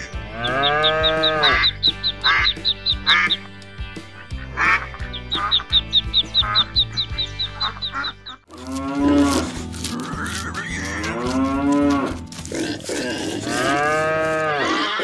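Cow moos, several long calls that rise and fall in pitch, laid over light background music.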